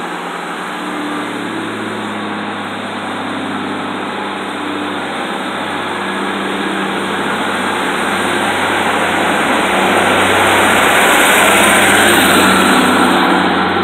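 British Rail Class 153 diesel multiple unit running along the platform with its underfloor diesel engine humming steadily, getting gradually louder as the coach draws alongside and loudest near the end as it passes close.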